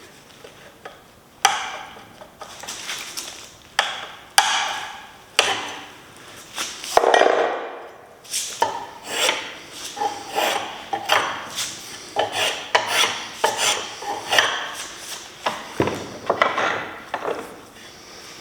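Hand edge tool shaving wood from the end of a wooden tool handle: one scraping stroke after another, with a couple of sharp knocks early on.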